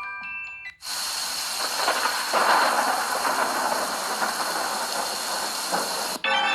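A hissing, noise-like preloaded Google Pixel 3a ringtone. It starts about a second in, after the last notes of a chime tone fade out. It cuts off suddenly near the end, where an organ-like tone begins.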